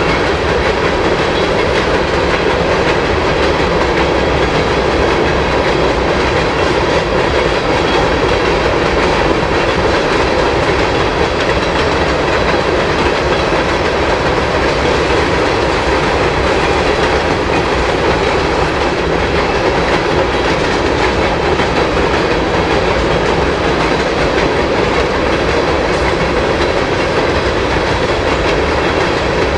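Freight train cars rolling past at a steady pace: an even, continuous rumble of wheels on the rail, with no horn.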